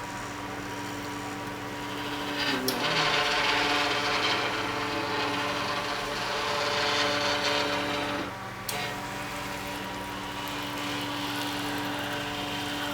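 CNC machine running: a steady mechanical whine of several motor tones, with a louder, noisier stretch from about two and a half to eight and a half seconds in. The pitch shifts with a sharp click at the start and end of that stretch as the machine changes its moves.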